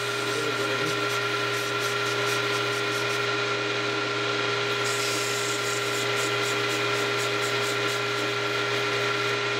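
Small lathe running steadily, its motor humming with a constant tone. About five seconds in, a scratchy high hiss joins it while a hand works the spinning wooden wheel piece.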